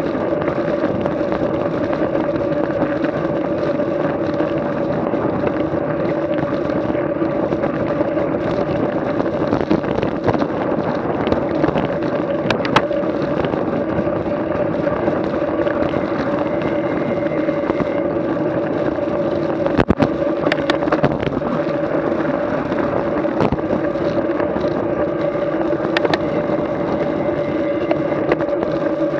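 A vehicle's engine running at a steady speed: a constant droning hum, with a few sharp knocks and rattles, the strongest about two-thirds of the way through.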